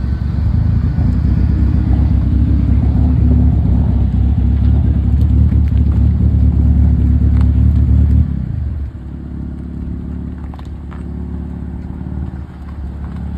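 Car engine running loudly and steadily at raised revs, then its note falls and settles to a quieter idle about eight seconds in.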